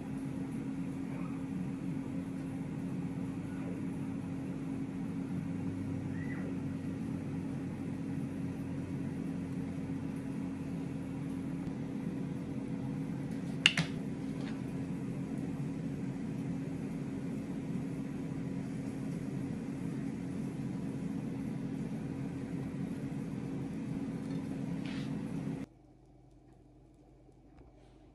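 A household appliance's steady machine hum with a low tone, with a single sharp click about halfway through; the hum cuts off suddenly near the end.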